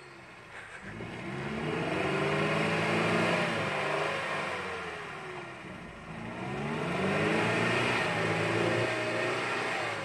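UAZ off-roader's engine revving under load as it pushes through a deep muddy washout, rising and falling in pitch twice.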